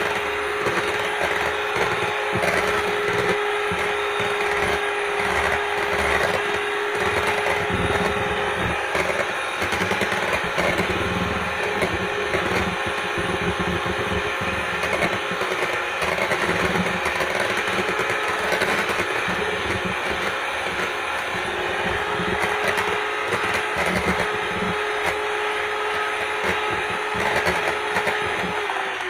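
Electric hand mixer running steadily at a high whine, its beaters whipping egg whites and sugar in a bowl. The meringue is still at the soft stage and is being beaten toward stiff peaks.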